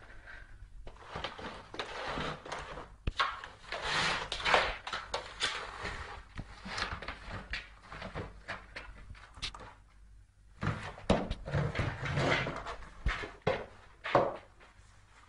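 A cat scrambling in and around an empty cardboard box: irregular scraping, rustling and knocks of cardboard against a hard floor, with quieter pauses between bouts.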